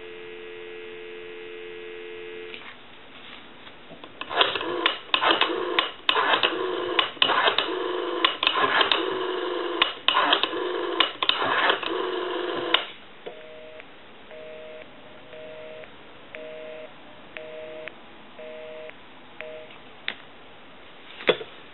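Telephone line tones from a rotary telephone under test: a steady dial tone for about two and a half seconds, then the number being dialed, heard as a run of loud clicking bursts. After that a busy signal, a two-tone beep pulsing about once a second, because the number called is in use.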